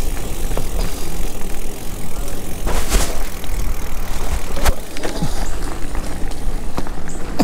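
Mountain bike riding over a dirt singletrack trail, heard close up from the handlebars: a steady deep rumble and rattle of tyres and frame over the rough ground. A short burst of noise about three seconds in and a sharp knock just before five seconds.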